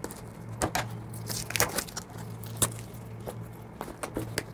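Cardboard shipping box being pried open by hand: scattered short scrapes, rips and knocks of cardboard, over a steady low hum.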